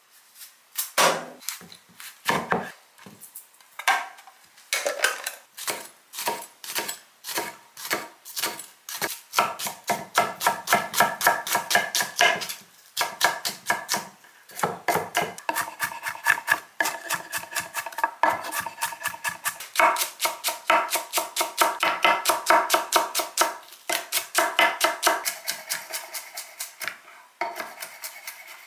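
Kitchen knife chopping onion and then cabbage on a wooden cutting board: quick, even knocks of the blade on the board, several a second, broken by a few short pauses.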